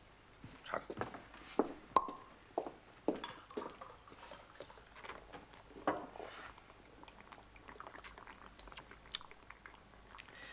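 Glass beer bottles being handled and set down on a table: scattered short clinks and knocks, several a second at first, thinning out after about six seconds.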